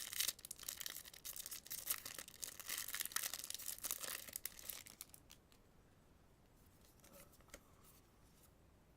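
A foil trading-card booster pack being torn open, its wrapper crackling and crinkling for about five seconds, then falling quiet apart from a couple of faint taps.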